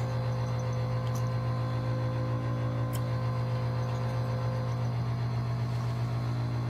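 Steady low hum of an electric cupping suction pump, under soft sustained background-music tones, with a few faint clicks.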